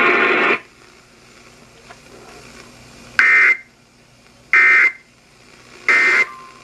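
Emergency Alert System digital data bursts from a NOAA Weather Radio: three short, loud screeching bursts about 1.3 s apart, the kind sent as the end-of-message code after a warning. A loud noisy sound from the radio cuts off about half a second in.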